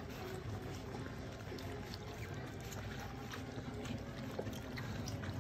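A litter of puppies lapping and slurping wet puppy gruel from a shared bowl, a steady run of small wet smacks and clicks.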